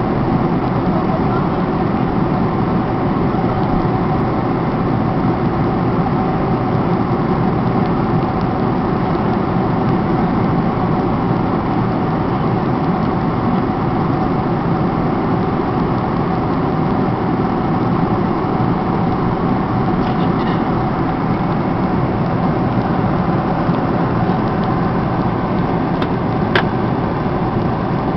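Steady cabin noise inside a Boeing 747 at cruising altitude: the even rush of jet engines and airflow, with a faint steady hum. One small click near the end.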